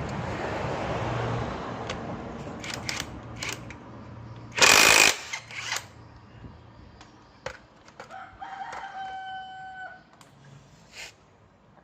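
Rooster crowing once, a single call of about a second and a half, beginning around eight and a half seconds in. Before it come clicks and tool clatter from a scooter's CVT cover being opened, with a loud burst of noise about half a second long at roughly four and a half seconds.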